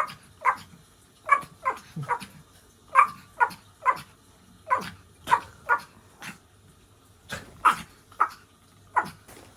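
Dog barking repeatedly in short, sharp barks, each dropping in pitch, at an uneven pace of roughly two a second.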